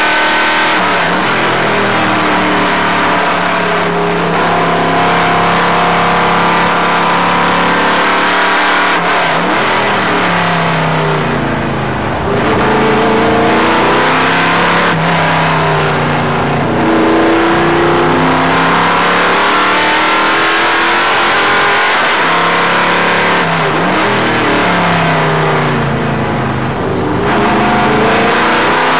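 Stock car's racing engine heard from inside the cockpit at racing speed. It holds a steady high note for the first eight seconds or so, then drops in pitch and climbs again several times as the car slows and accelerates through the gears.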